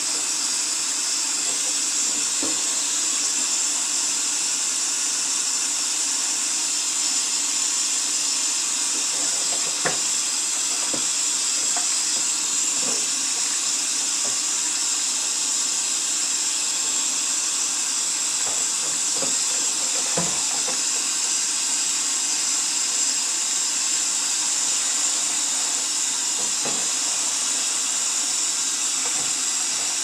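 Kitchen faucet spray running steadily into a stainless steel sink as it fills with water for a bleach soak. A few light knocks come as the plastic humidifier part is handled under the stream.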